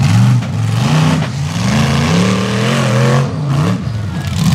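Rock bouncer buggy's engine revving hard in repeated bursts as it climbs over boulders, the pitch rising and falling several times.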